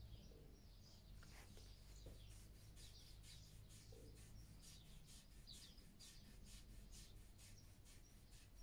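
Faint, rhythmic rubbing of hands over a horse's coat during a back massage, about two to three strokes a second, starting about a second and a half in, over a low steady hum.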